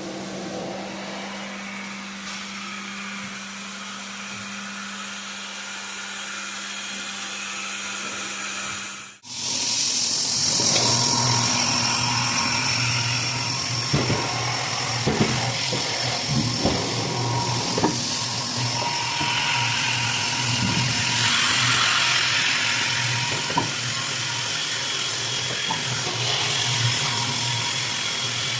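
Floor polishing machine running steadily as travertine is honed and polished wet with diamond pads. About nine seconds in the sound cuts abruptly to a louder, hissier stretch of machine running, with a few sharp knocks.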